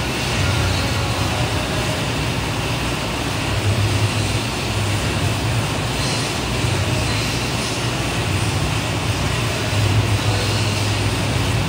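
Air bike's fan whooshing steadily as it is pedalled and pushed hard.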